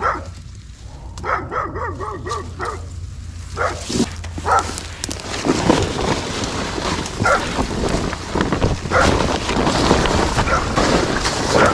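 Large plastic tarp rustling and crinkling as it is lifted and handled, with grass and weeds brushing and trampled underfoot. In the first few seconds, before the rustling builds, there are a few short, wavering high-pitched calls.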